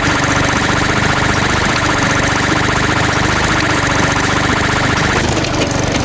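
Cartoon sound effect of a small construction vehicle's engine running steadily, with a high, rapidly pulsing buzz over it that stops about five seconds in.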